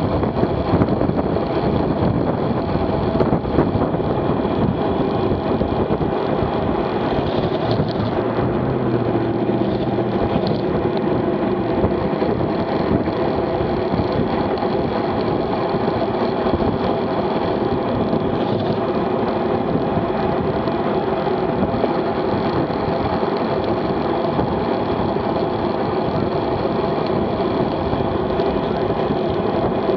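Steady rush of wind and tyre noise from a road bike riding at about 27 mph, heard through a bike-mounted action camera.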